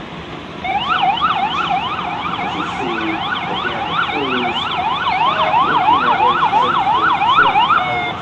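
Emergency vehicle siren in a rapid up-and-down yelp, about three sweeps a second. It starts about a second in, grows a little louder and cuts off just before the end.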